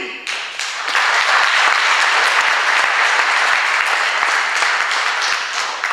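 Audience applauding: the clapping swells within about a second, holds steady, and stops near the end.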